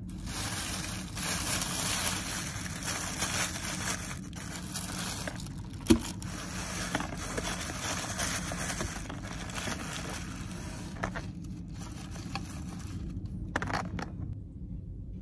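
Thin plastic takeaway carrier bag rustling and crinkling as food is unpacked from it, with one sharp knock about six seconds in. A steady low hum runs underneath.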